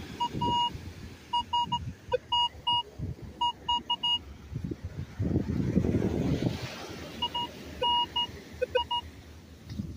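Metal detector sounding short, mid-pitched beeps in quick runs of two and three as the coil passes over a buried metal target, with a few lower beeps among them. A burst of noise comes in the middle, between the two runs of beeps.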